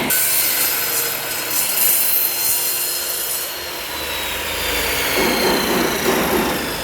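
Ingco electric miter saw cutting through wood: a hissing cut with the motor's whine slowly falling in pitch as it works.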